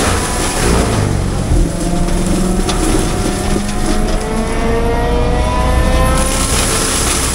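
Heavy-equipment diesel engine running under load, its pitch sliding slowly up and down.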